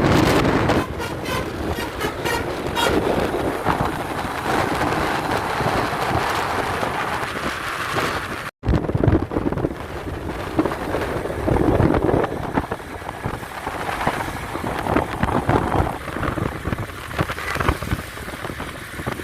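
Bus passing with engine and road noise and wind buffeting the microphone. Near the start, a quick series of short repeated notes from a multi-tone telolet horn. The sound breaks off sharply about halfway, where a second, similar stretch of bus and traffic noise begins.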